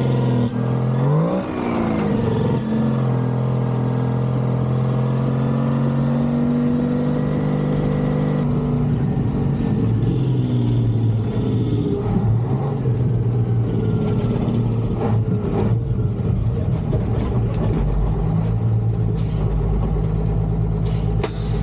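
Diesel engine of an old Peterbilt cabover semi with a Detroit two-stroke, revving up twice in quick succession through gear changes, then pulling steadily, its note dropping about eight seconds in. A deeper rumble and a few sharp clicks come near the end.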